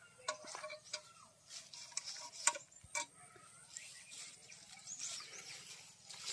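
Footsteps and rustling in grass with several sharp knocks, the loudest about two and a half seconds in, as a metal bucket is set down on the ground. Small birds chirp briefly in the background.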